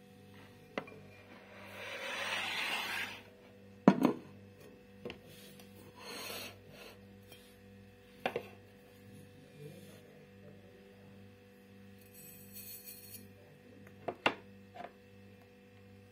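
Kitchen handling sounds over a faint steady hum. A glass bowl and containers knock as they are set down on a table, the sharpest knock about four seconds in, with a brief rustle just before it. Salt is sprinkled into the glass bowl a few seconds before the end.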